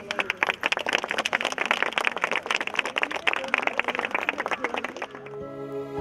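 A group of people clapping their hands in applause for about five seconds. Near the end the clapping gives way to background music with held notes.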